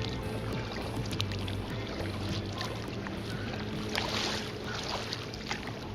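A motorboat's engine hums steadily across the lake while water splashes and laps, with a louder splash about four seconds in.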